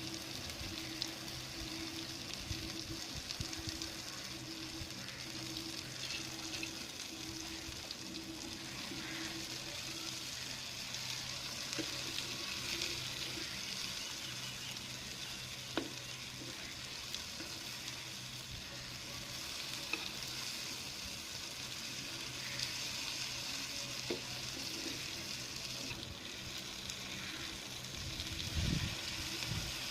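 Pieces of eri vaalai fish frying in hot oil: a steady sizzle, with occasional sharp clicks of a utensil against the pan.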